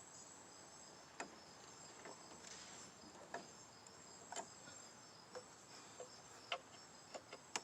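Near silence: a few faint, scattered clicks and ticks of small plastic parts being handled as the ignition coil boot is swapped, over a faint steady high-pitched background.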